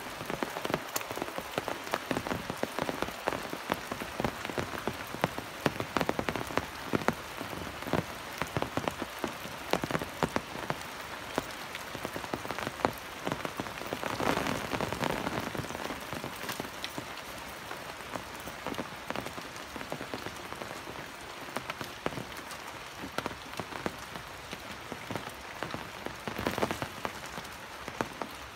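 Rain falling steadily on wet paving and trees, with many sharp single drops striking close by; it grows briefly heavier about halfway through.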